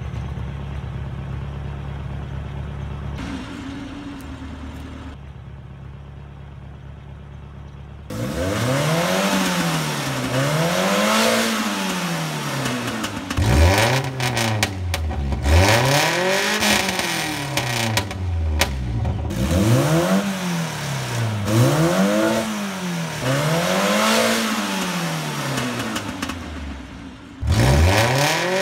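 Toyota 2T four-cylinder engine with its stock carburettor, breathing through an aftermarket exhaust, idling steadily and then revved in a string of about ten quick throttle blips, the pitch rising and falling each time. One last blip comes after a short drop back near the end.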